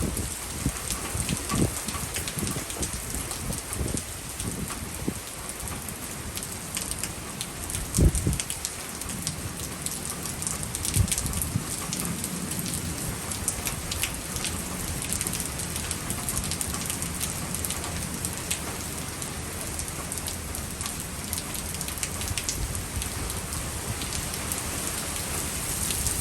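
Heavy, steady rain falling, with many sharp individual drop strikes. A few low thumps come through, the loudest about 8 seconds in.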